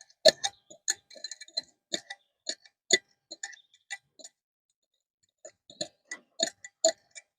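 Thick mayonnaise sauce poured and scraped from its container over a bowl of popcorn: irregular soft clicks, taps and small plops, pausing briefly about two-thirds of the way through.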